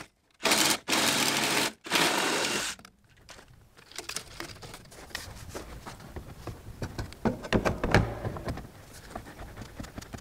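Cordless reciprocating saw cutting through PVC pipe in three short bursts, stopping about three seconds in. After that come scattered clicks and knocks of PVC pipes being handled and pushed into their fittings, loudest around eight seconds in.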